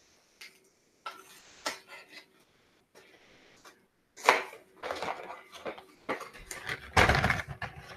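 A cardboard box of lasagna noodles being opened and handled by hand: irregular rustling and crackling with small knocks. The loudest moment comes about four seconds in, and the handling gets busier and louder near the end.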